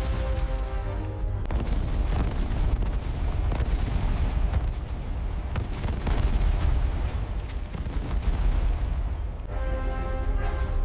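Film-style sound design of deep rumbling booms and crashing impacts, like explosions and a volcanic eruption, under a dramatic music score. Sustained music notes are heard in the first second or so and return near the end; in between the rumble and scattered impacts dominate.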